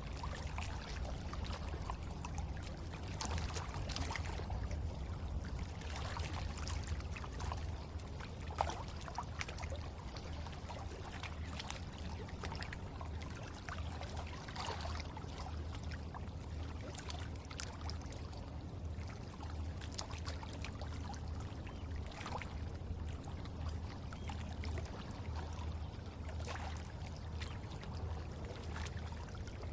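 River water flowing steadily, with a low rumble and frequent small splashes and gurgles.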